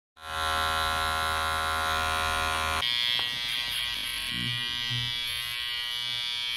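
Electric hair clippers running steadily. The sound starts abruptly and its tone shifts about three seconds in.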